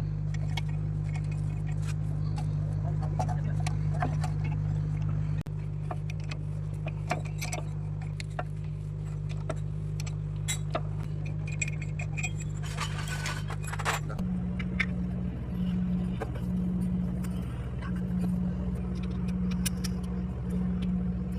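Light metal clinks of tools and brake parts being handled, over a steady low hum that turns into an on-off pulsing tone about 14 seconds in.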